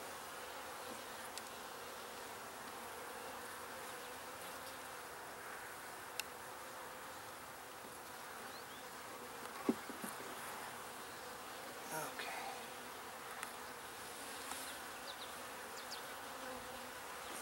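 Honeybees humming steadily around an open hive as a frame of comb is lifted and set back, with a couple of light knocks, about six and ten seconds in.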